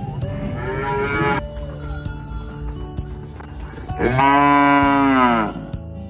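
Cows mooing twice: a shorter call near the start and a longer, louder one about four seconds in, over background music.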